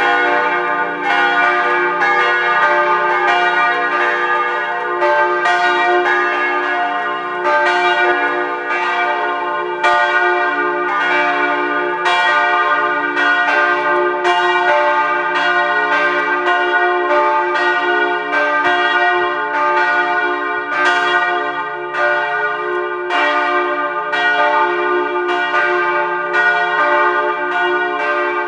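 Church bells ringing in full peal, their strikes overlapping in a steady stream of about one to two strokes a second, each tone ringing on under the next.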